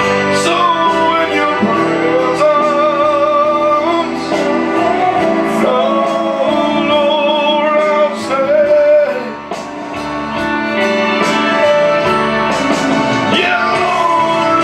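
Live gospel worship music: sustained singing over instrumental backing, dipping briefly about nine seconds in.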